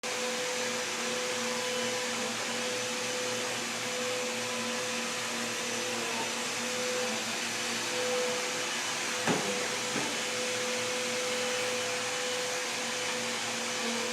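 Vacuum cleaner running steadily, a constant rushing noise with a steady pitched hum, and two brief knocks a little past halfway through.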